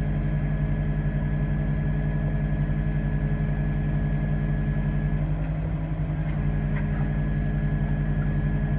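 An engine running steadily at one speed. A thin, high whine over it drops out for about a second just past the five-second mark, then returns.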